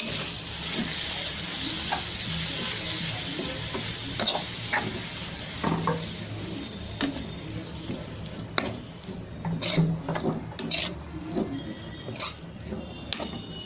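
Grated bottle gourd sizzling in hot ghee while a metal spatula stirs it, scraping and clicking against the pan. The sizzle fades after about half the time, leaving mostly sharp spatula clicks against the pan.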